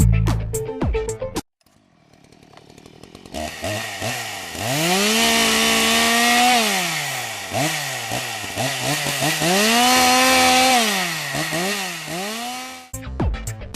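Music stops and a chainsaw engine starts up. It revs up and holds high for a couple of seconds, drops back with short blips of the throttle, then revs and holds again before falling away. It cuts off abruptly near the end as the music comes back.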